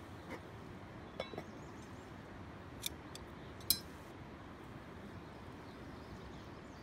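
Light metallic clinks and taps of metal camp cookware being handled, about five in the first four seconds, one with a short ring, over a steady low background hiss.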